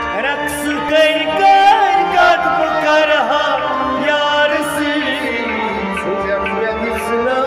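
Two male voices singing a Kashmiri song in turn, with ornamented, wavering lines over the held chords of two harmoniums.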